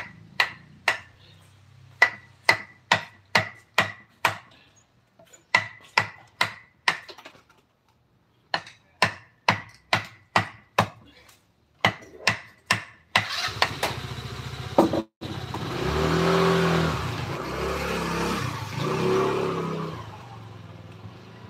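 Sharp, ringing strikes of a mallet on a wood-carving chisel, about two a second in short runs with brief pauses. About thirteen seconds in, a motor vehicle engine comes in and runs loudly for several seconds, covering the strikes.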